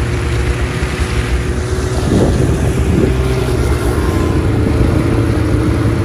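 Ski-Doo 600 Grand Touring snowmobile running steadily at cruising speed, engine drone under a rush of track and wind noise while it tows a loaded ice-fishing sled.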